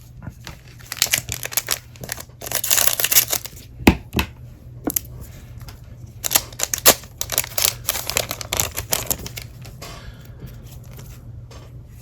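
A foil trading-card booster pack being torn open and crinkled, with the cards slid out and handled. There is a longer tearing rip about two and a half seconds in, among many short rustles and clicks.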